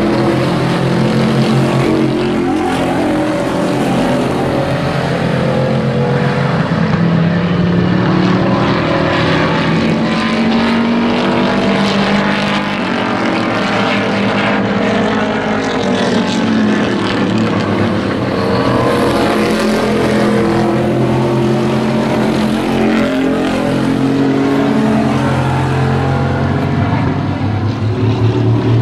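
Several hobby-class pickup race trucks' engines running hard around a short oval, their pitch rising and falling as they accelerate out of the turns and back off into them.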